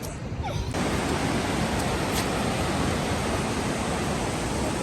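Steady rushing noise of sea and wind at the shore, which starts abruptly a little under a second in and holds even.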